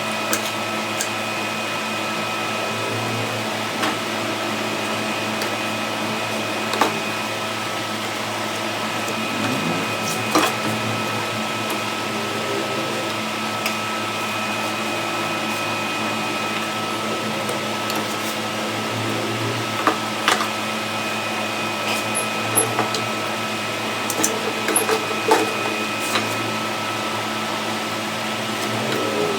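A small electric motor running with a steady hum, with scattered sharp clicks and knocks, more frequent near the end.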